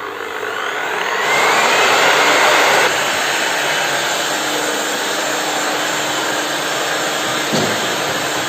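Electric disc sander for wall putty, with built-in dust extraction, starting up with a rising whine and then running steadily, a little lower from about three seconds in. A short knock comes near the end.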